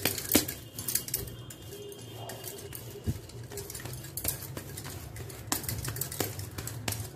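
Hands kneading and tucking a sticky wheat-flour dough in a glass bowl: scattered light clicks and knocks against the glass, over a steady low hum.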